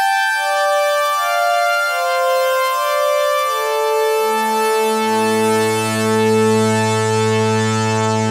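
Synthesizer pad sampled from a Sequential Prophet-6 ('Dream Pad 1'), played on a keyboard. Held notes come in one after another and overlap into a sustained chord, with lower notes entering about four and five seconds in.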